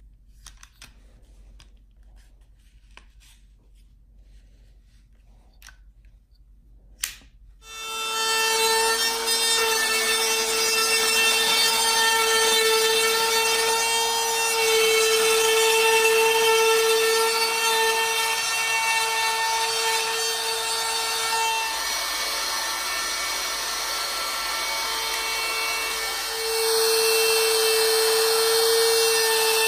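Near quiet with a few faint clicks and a sharp tap about seven seconds in, then a woodworking power tool starts and runs with a steady whine. It eases off slightly past the middle and picks up again near the end.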